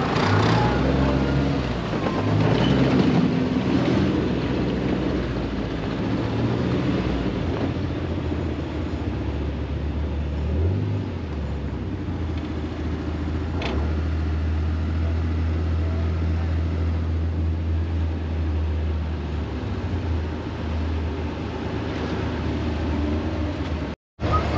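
Side-by-side UTV heard from its seat while driving along a dirt trail: a steady low engine drone with road and wind noise. The sound cuts out for a moment near the end.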